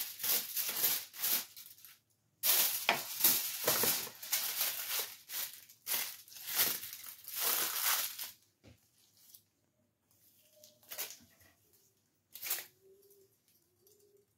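Aluminium hair foil crinkling and rustling in repeated bursts as bleached strands of a wig are wrapped and brushed. About two-thirds of the way in it drops to a few brief rustles.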